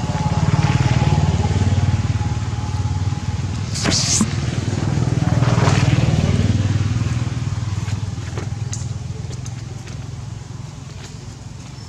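An engine running, growing louder about a second in and again around six seconds, then fading away. A short, sharp, high sound cuts in briefly about four seconds in.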